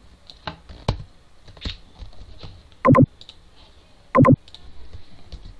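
Computer keyboard and mouse clicking: scattered clicks of keys being typed, with two louder knocks about three and four seconds in.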